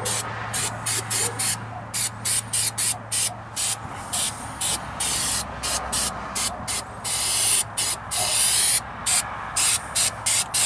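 Aerosol can of rubberized undercoating spraying in many short bursts, about two or three a second, with one longer spray of about a second a little past the middle.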